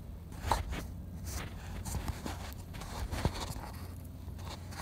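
Handling noise of a phone camera being turned and repositioned: rubbing and scraping against the microphone, with a few sharp knocks, the loudest about half a second in and just after three seconds.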